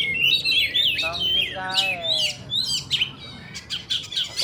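Oriental magpie-robin (kacer) singing a fast, varied song of whistled notes, chirps and pitch sweeps with no pauses, the full song of a bird in good performing form.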